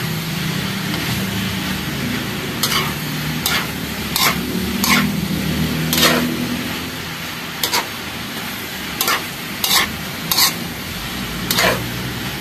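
Ladle scraping and knocking against a wok as pieces of boiled pork intestine are stir-fried, with sizzling underneath; about a dozen sharp scrapes at uneven intervals over a steady low hum.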